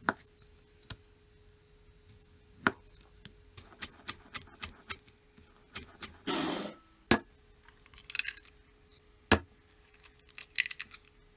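A chef's knife cutting on a plastic cutting board: single knocks as sausage is sliced, then a run of quick taps chopping green onions and a brief scrape across the board. Near the end an egg is knocked on a ceramic bowl and its shell cracks open with a short crackle. A faint steady hum runs underneath.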